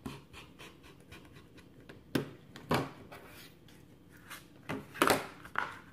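Rotary cutter rolling along an acrylic ruler, cutting through sticky board on a self-healing cutting mat: faint scratching, then about five short, louder rasping strokes from about two seconds in.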